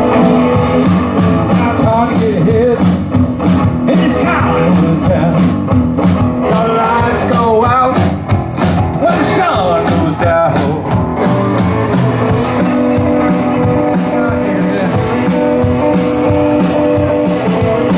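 Rock and roll band music: electric guitar over a steady drum-kit beat, with some singing.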